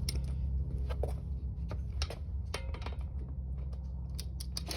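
A scatter of light, irregular clicks and taps, about a dozen, over a steady low hum.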